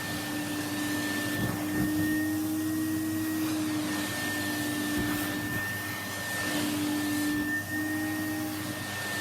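Vacuum cleaner running with a steady motor whine while it sucks dust out of long hair. The pitch dips slightly now and then.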